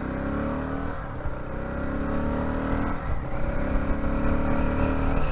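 Honda XR600R's single-cylinder four-stroke engine accelerating up through the gears. Its pitch climbs and drops back at shifts about one and three seconds in. Wind rush is heard on the helmet microphone with the face shield up.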